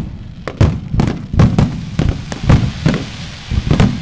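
Aerial firework shells bursting in quick succession: a rapid string of booms, about two or three a second, with a steady crackle between them.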